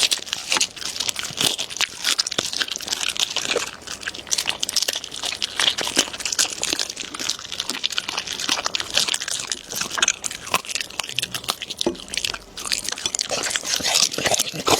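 A dog chewing and crunching food close to the microphone: a dense, irregular run of crisp crunches and wet bites.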